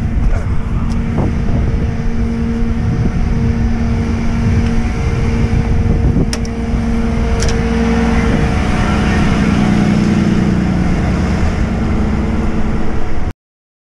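A rollback tow truck's engine running with a steady hum that drops a little in pitch about eight and a half seconds in, over rough handling and footstep noise, with two sharp clicks around six and seven seconds in. The sound cuts off suddenly near the end.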